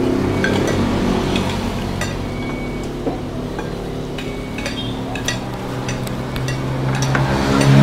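Spoons and dishes clinking at a meal table, in scattered light clicks, over a steady low engine-like hum that swells near the end.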